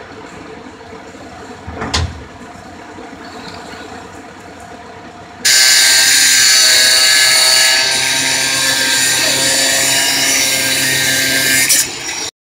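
Angle grinder cutting metal on a wooden garage door: it starts abruptly about five seconds in, runs loud and steady with a high whine for about six seconds, then stops. Earlier, a single sharp knock about two seconds in.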